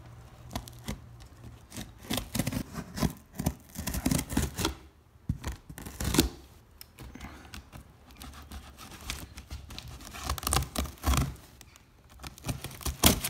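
Scissors cutting open a taped cardboard box: the blade is dragged along the seam, slitting packing tape and cardboard with irregular scraping, tearing and snipping sounds.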